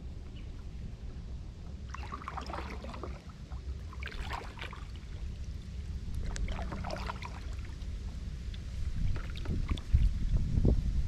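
Kayak paddle strokes splashing in the water about every two seconds, over a steady low rumble of wind on the microphone that gusts louder near the end.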